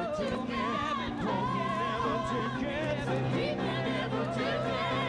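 Live music: voices holding long, wavering notes with vibrato, without clear words, over sustained accompaniment; a steady low note comes in about a second in.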